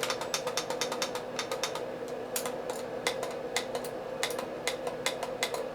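Rapid, irregular small plastic clicks, several a second and spacing out towards the end, from the controls of a Travelwey LED alarm clock being worked.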